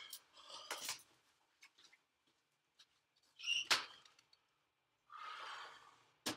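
A few quiet clicks and knocks with brief rustling as a man shifts about and handles objects in a small room. The loudest sharp knock comes midway, followed later by a soft rustle.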